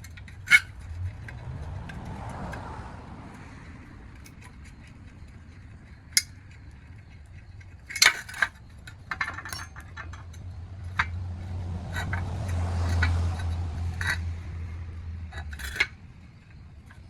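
Scattered metallic clinks and knocks of hand tools and small parts being handled while the old lower radiator support is stripped of its tabs and fittings, over a steady low hum.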